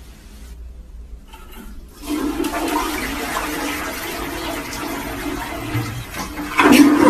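A toilet flushing, set off by a cat pawing the flush handle: faint at first, then water rushing into the bowl from about two seconds in, louder near the end.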